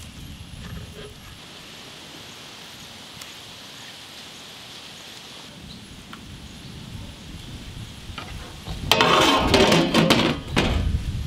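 Rice and broth bubbling in a large clay pot, a low steady hiss. About nine seconds in, a wide metal lid is set and shifted on the pot's rim with a loud scraping clatter that lasts a couple of seconds.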